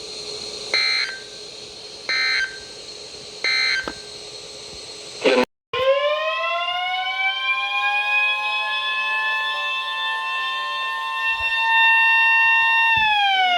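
Three short EAS digital data bursts, the end-of-message code, each under half a second and about a second and a half apart. After an abrupt cut, a siren-like alert tone sweeps up, holds steady for about seven seconds alongside a steady single-pitch alert tone, then falls away near the end.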